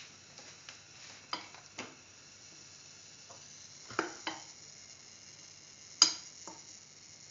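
A handful of sharp clicks and knocks on a frying pan, the loudest about six seconds in, over a faint steady sizzle of hot oil in the pan.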